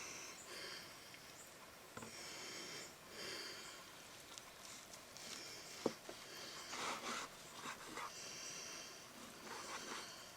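Faint high-pitched chirping in short repeated phrases, with a sharp click about six seconds in.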